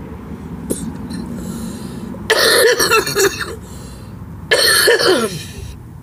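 A woman coughing while smoking a cigarette: two loud bouts of coughing, one about two seconds in and another near the five-second mark.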